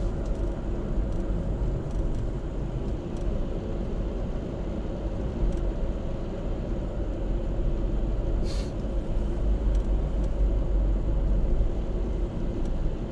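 Steady low road and engine rumble of a car driving, heard from inside the cabin, with a brief hiss about eight and a half seconds in.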